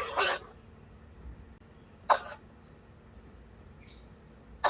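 A person coughing hard in short, harsh bouts: a double cough at the start, a single cough about two seconds in, and another just as it ends.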